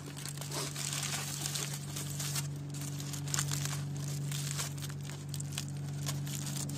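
Aluminium foil wrapper crinkling and crackling irregularly as it is handled and peeled back from food, over a steady low hum.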